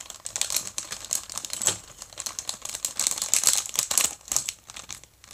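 Thin plastic packaging bag crinkling and crackling in quick, irregular bursts as it is handled and tiny plastic miniature pieces are taken out of it.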